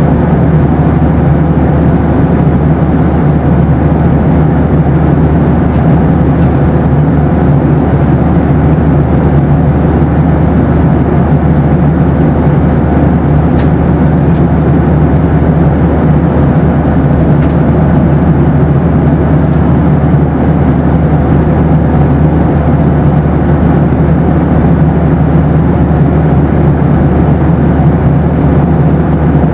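Boeing 737 cabin noise: a loud, steady rumble of engines and airflow, deepest in the low end, with a faint steady hum above it.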